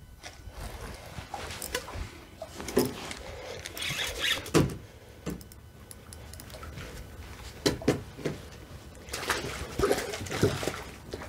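Knocks and clatters of a kayak and fishing gear being handled, then splashing near the end as a hooked sheepshead thrashes at the surface.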